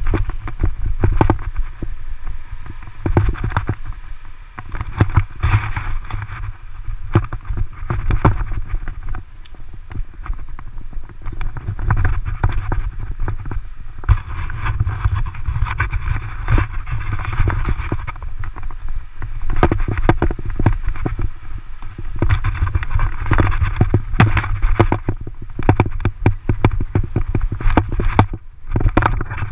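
Bicycle riding over a rough dirt and gravel track. Wind rumbles on the camera microphone, with frequent rattles and knocks from the bumps.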